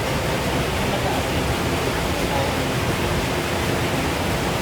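Waterfall and stream water rushing, a steady even roar.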